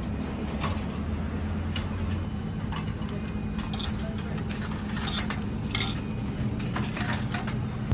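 Coins being fed into the coin slot of a vintage shaved-ice vending machine: a series of small metallic clicks and clinks as they handle and drop through the mechanism, over a steady low hum.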